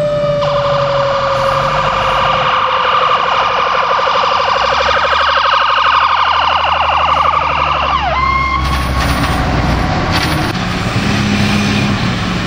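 Emergency vehicle sirens. A mechanical siren winds down in a long falling tone, then an electronic siren yelps rapidly over a heavy engine's low rumble. About eight seconds in, the siren sweeps sharply down and up and switches to a steady tone.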